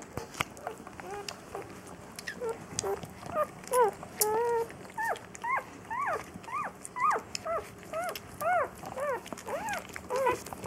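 Newborn collie puppies squealing in short high cries, each rising then falling, coming at about two a second from about three seconds in, as they root and jostle for the mother's teats.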